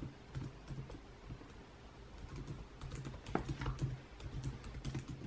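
Typing on a computer keyboard: irregular keystrokes as a web search is typed in.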